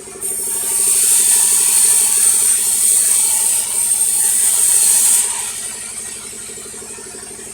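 Sawmill running with a fast, steady mechanical chatter. From just after the start until about five seconds in, the saw blade cuts through a log with a loud, high-pitched hiss, then drops back to the machine running alone.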